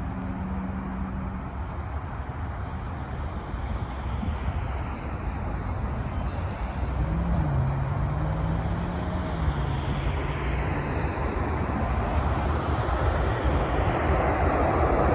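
Jet engines of an Airbus A330-243, its Rolls-Royce Trent 772B turbofans, as a steady rumbling roar that slowly grows louder as the airliner approaches.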